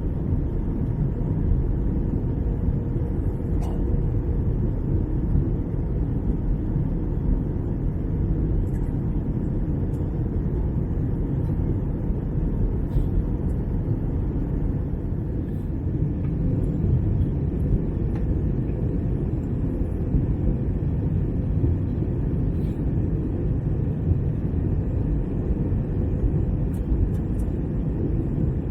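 Steady low rumble of cabin noise inside an Airbus A321-200 airliner: engine and air noise.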